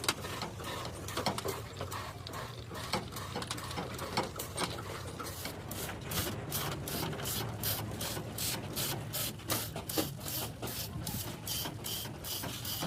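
Quick mechanical clicking, irregular at first, then settling about halfway in into an even run of about four sharp clicks a second, over a faint low hum.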